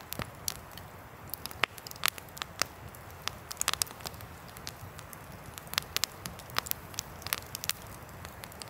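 Wood campfire burning, crackling with frequent sharp pops and snaps at irregular intervals over a faint, low, steady rush.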